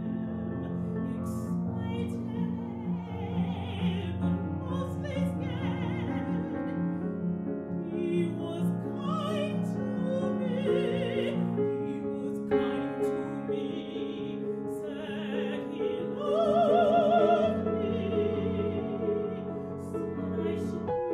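A woman singing opera in English with a wide vibrato, accompanied by piano. About three-quarters of the way in she sings a louder held note.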